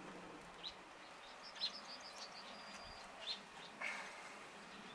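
Faint birdsong: short chirps and twitters coming at irregular intervals over a quiet background hiss.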